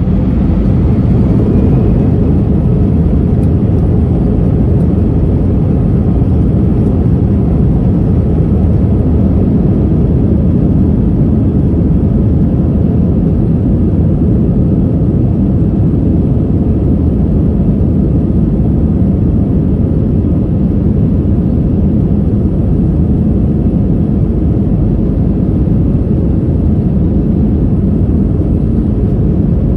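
Inside an Airbus A319 cabin on the takeoff roll: the jet engines spool up right at the start, then a loud, steady roar of engines and runway rumble as the airliner accelerates.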